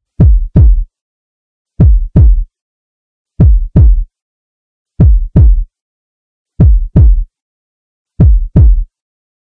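Heartbeat sound effect: deep double thumps, six pairs about a second and a half apart, each thump dropping in pitch, with silence between the pairs.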